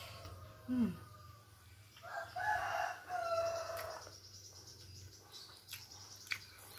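A rooster crowing once, a pitched call lasting about two seconds from about two seconds in. Before it, a little under a second in, a short sound drops in pitch, and near the end come a few sharp clicks.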